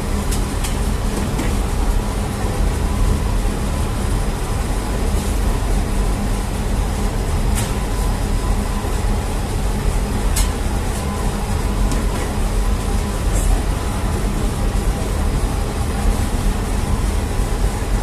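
Steady rumble and hum of a bakery's bread oven and machinery running, with a few sharp clicks scattered through it.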